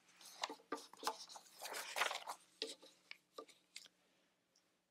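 Faint rustling of paper notes being handled and turned over, with scattered light clicks; the fullest rustles come about half a second and two seconds in.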